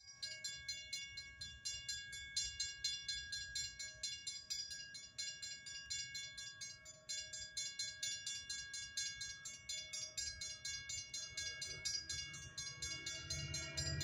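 Railroad crossing warning bell ringing with quick, even strikes while the gates are down. Near the end the low rumble of the approaching Metra commuter train rises underneath.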